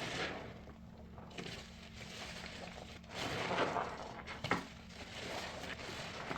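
A sponge loaded with soap paste being squeezed, giving wet squishing and crackling in several waves, the strongest about three seconds in, with a sharp snap a little later.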